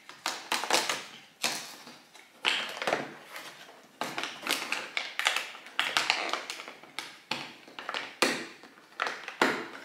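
Fingers and fingernails picking, tapping and scraping at a cardboard advent calendar door to pry it open: an uneven run of clicks, scratches and small creaks of the card.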